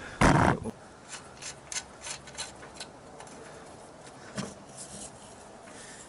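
Hands working a child's bike's front axle, fitting the safety washer and axle nut against the fork: a short loud rush of noise just after the start, then a few faint light clicks of metal parts being handled.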